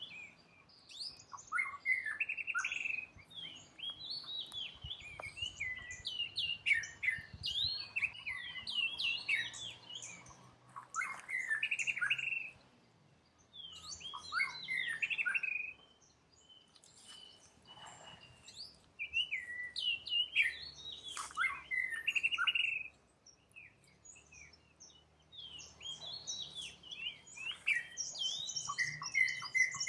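Birds chirping: many quick, high notes that sweep up and down, coming in busy clusters with short quiet gaps between them.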